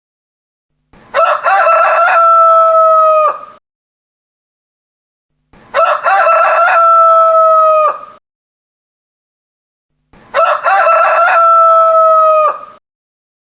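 Rooster crowing three times, about four and a half seconds apart: each crow is a loud cock-a-doodle-doo lasting about two and a half seconds, with a long held note that drops off at the end. The three crows are identical, as if the same crow were repeated, with silence between them.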